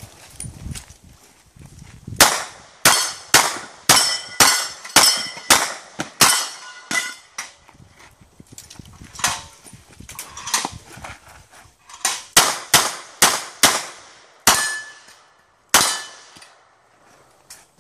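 Pistol fired in rapid strings of shots, roughly two a second, with short pauses between strings. Hits on the steel plates of a Polish plate rack ring with a brief metallic clang.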